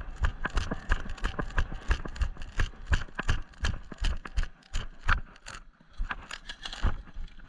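Footsteps of a player walking or jogging at about three steps a second, each step a sharp thump, with gear rattling.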